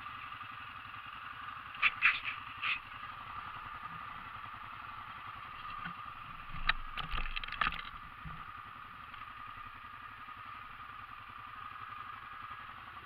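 ATV engine running steadily, with a few short clattering knocks about two seconds in and again around seven seconds in.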